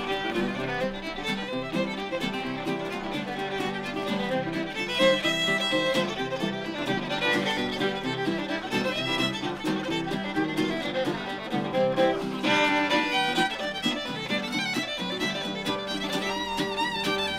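Western swing instrumental: a fiddle plays the lead over a strummed rhythm guitar and a National resonator guitar.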